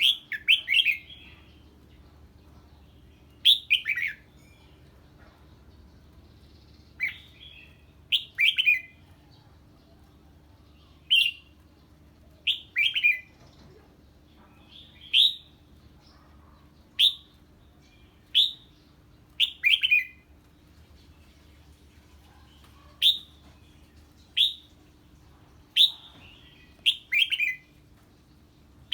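Red-whiskered bulbul giving short, sharp calls that fall in pitch, singly or in quick pairs and triplets every second or two: the agitated 'ché' song it gives on hearing an unfamiliar bird. A faint steady hum underneath.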